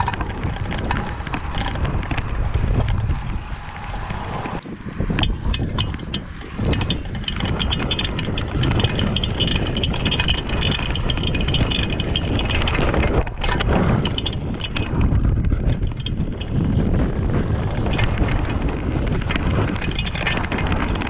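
Downhill mountain bike being ridden over rough ground, with wind rushing on the microphone and tyre noise. From about four and a half seconds in, frequent clattering knocks and rattles are heard.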